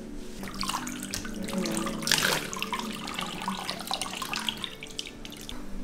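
Bathwater splashing and sloshing in a bathtub around a dog being washed, in irregular bursts that are loudest about two seconds in.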